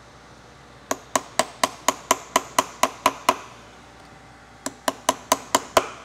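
A chisel struck with a hammer to bend back the lock washer tabs on a motorcycle clutch nut: a run of about eleven quick, sharp metallic taps, four to five a second, a pause, then about six more.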